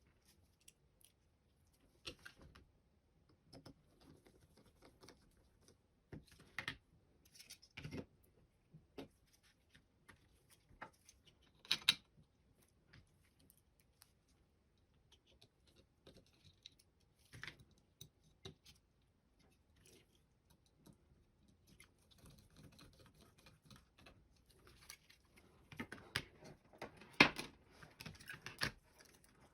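Small plastic clicks, taps and knocks of a Logitech M150 corded mouse's parts being handled and fitted back together, scattered at first and coming thicker and louder in the last few seconds.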